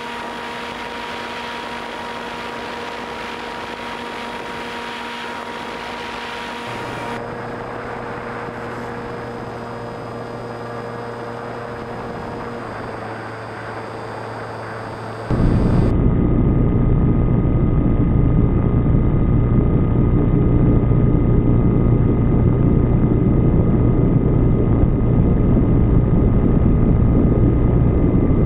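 R/C airplane's motor and propeller running steadily as heard from an onboard camera, a constant hum under rushing air noise. About halfway through, the sound suddenly becomes much louder and deeper.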